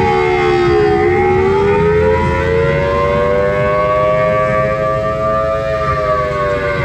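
Tornado siren howling, sounding two close pitches together. The pitch dips about a second in, climbs slowly, then starts to fall again near the end.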